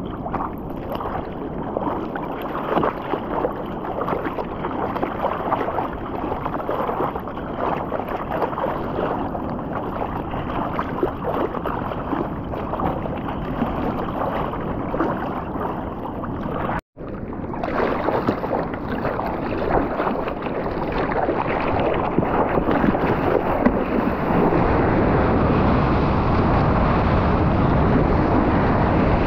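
Ocean water splashing and rushing, with wind buffeting the microphone of a surfer's POV camera in the surf. There is a brief drop-out just past halfway, and the rush grows louder near the end.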